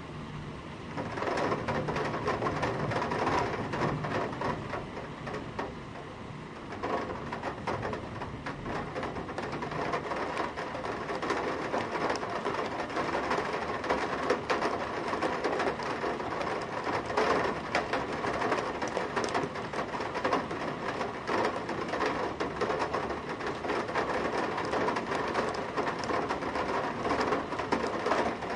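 Heavy rain drumming on a metal window sill, heard from inside: a dense, rapid patter of drops hitting the metal. It swells about a second in, eases briefly around six seconds, then keeps up steadily.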